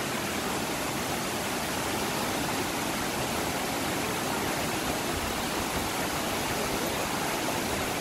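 Rushing water of Shirahige Falls and the rapids of the mountain river below them: a steady, even rush of white water over rocks.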